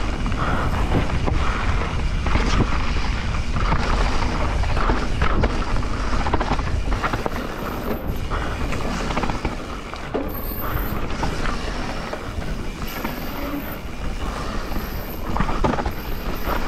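Transition Spire 170 mm 29er enduro mountain bike riding a dry, loose trail: tyres crunching over dirt and stones while the frame, chain and suspension rattle and creak in a constant run of small clicks and knocks, over a steady low rumble.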